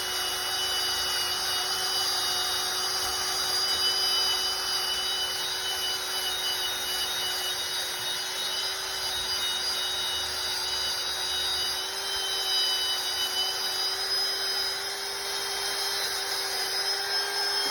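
Power drill running steadily, spinning a wire brush against hedge trimmer blades to scrub off built-up sap.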